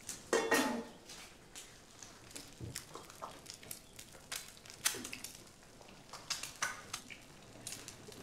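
Light kitchen clatter of dishes being handled: scattered small clicks and knocks as plates and plastic pastry cups are set down on a wooden counter.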